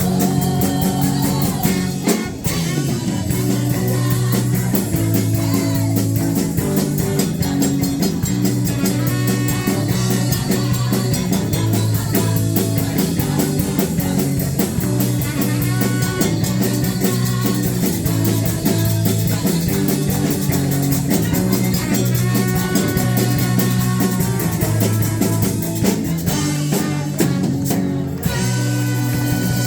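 Upbeat live worship band music with a steady beat and a repeating bass line, loud and continuous, with singing at times.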